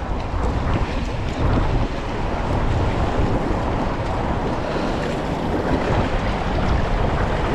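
Steady wind buffeting the microphone, over the wash of shallow saltwater.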